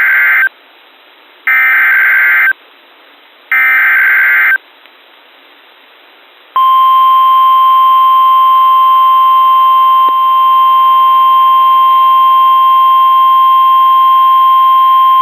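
NOAA Weather Radio alert sequence: three one-second bursts of the SAME digital header screech, a second apart, then the 1050 Hz warning alarm, one steady electronic tone held for about nine seconds. It signals a new warning, here a severe thunderstorm warning.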